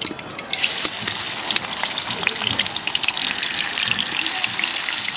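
Pieces of olive barb fish frying in hot oil in a karai: a dense sizzle full of crackles and spits. It starts suddenly about half a second in and stays steady after that.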